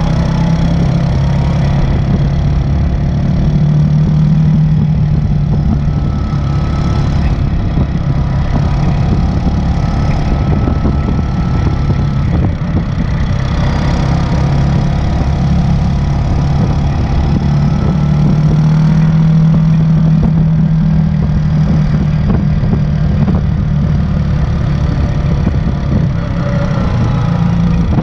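An ATV engine running steadily at trail speed, heard close up from the machine itself, its pitch swelling slightly a few times.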